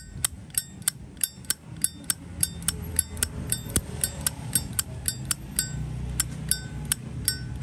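Zippo lighter's lid being flicked open and snapped shut over and over, a crisp metallic click-clack about three times a second with a brief ring after each. The sharp snap is the sign of a strong cam spring.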